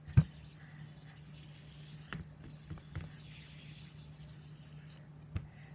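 A fidget spinner handled and flicked into a spin close to the microphone: one sharp click near the start and a few lighter taps later, over a steady low hum.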